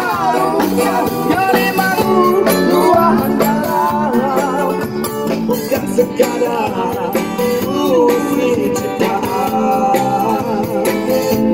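A male busker singing a rock song over guitar accompaniment, his voice sliding between held notes.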